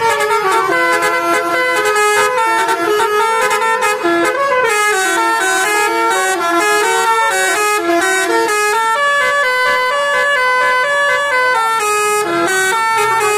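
A Tunggal Jaya bus's telolet basuri musical horn playing a fast, continuous melody. Its pitch jumps from note to note several times a second.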